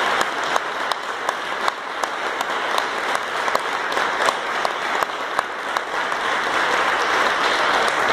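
Audience applauding steadily at the close of a lecture, many hands clapping with single claps standing out.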